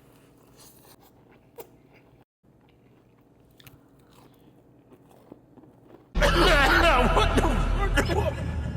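Close-miked chewing and crunching of fried fast food. It is faint with a few small clicks at first, then turns loud and dense about six seconds in.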